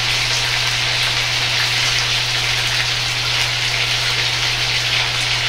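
Chicken and eggplant chunks deep-frying in hot oil in a wok, a dense, steady sizzle as the eggplant goes in for the chicken's second fry, with a low steady hum underneath.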